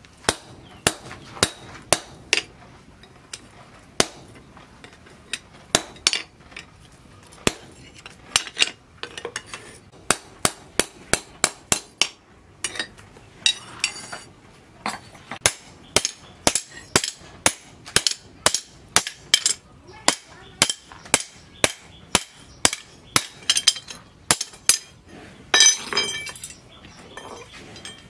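Hand hammer striking a forged steel cleaver blade on a small steel post anvil: sharp metal-on-metal blows with a ringing tone, at an uneven pace that quickens to two or three blows a second in the second half.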